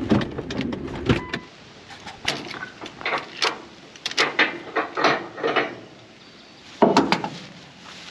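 Ratchet tie-down straps being worked loose: a string of short rasping zips and clicks from the ratchets and webbing, about two a second, with a brief pause before a louder cluster near the end. Before that, for about the first second and a half, a low truck-cabin rumble.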